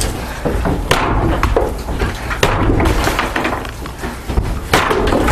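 Heavy blows of a hammer or bar striking a wall being knocked down, with cracking and breaking of the material; three loud impacts stand out, about a second and a half to two seconds apart, with smaller knocks and rattling between.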